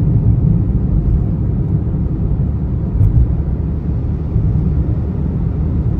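Steady low rumble of a vehicle travelling at speed: road and wind noise, with no clear engine note.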